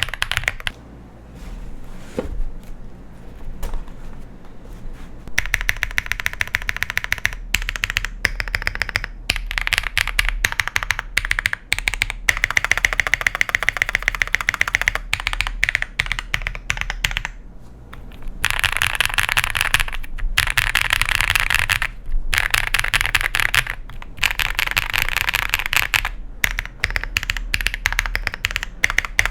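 Keystrokes on an iris65 custom mechanical keyboard with BSUN switches on a PC plate and GMK keycaps. A few scattered keystrokes come first, then fast continuous typing, and in the second half very rapid runs of keys broken by short pauses.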